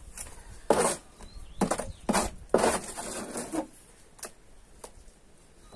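Wet plaster mix being spread and smoothed on a surface with a hand tool: a few short scraping strokes in the first half, then two light clicks.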